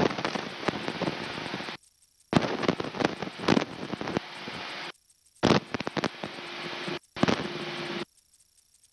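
Aircraft VHF radio carrying four bursts of crackling static. Each burst cuts in and out abruptly as the squelch opens and closes, with near silence between.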